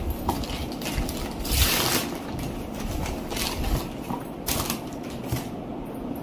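Brown paper parcel wrapping being torn open and crumpled by hand: steady crinkling with louder rips about one and a half seconds in and again past four and a half seconds.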